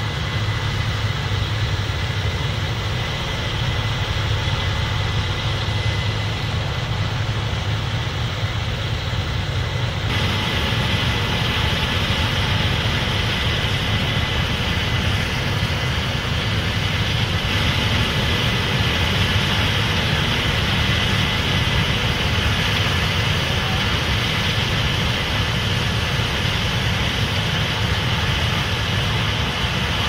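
A Case IH 8250 combine harvesting corn, with a tractor pulling a grain cart alongside: a steady, loud drone of heavy diesel engines. About ten seconds in, the sound gets fuller and brighter.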